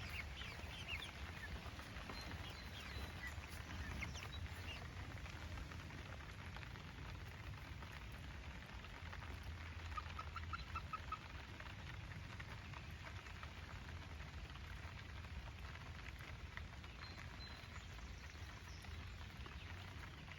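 Chickens clucking in short, scattered calls, with a cluster of calls about halfway through, over a faint steady patter of rain.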